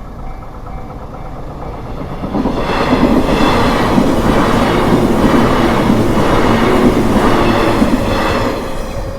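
Japanese level-crossing warning bell ringing in a steady repeating ding, then a train runs over the crossing about two seconds in, its wheels clattering over the rail joints for about six seconds before it fades.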